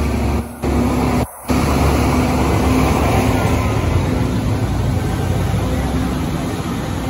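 A slow line of motor vehicles, a fire truck among them, passing close by with engines running in a steady rumble. The sound briefly cuts out twice in the first second and a half.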